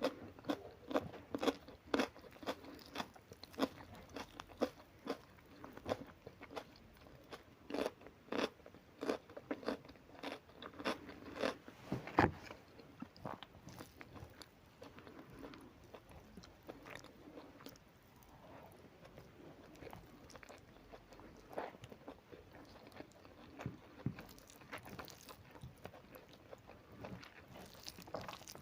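A person chewing and biting crisp food close to the microphone: a steady run of short crunches about two a second, stronger in the first half, with one sharp loud crunch a little before the middle, then softer chewing.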